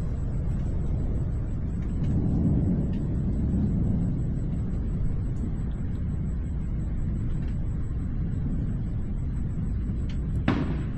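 Low rumble of distant thunder in a nighttime thunderstorm, swelling about two seconds in and easing off, with a single sharp crack near the end.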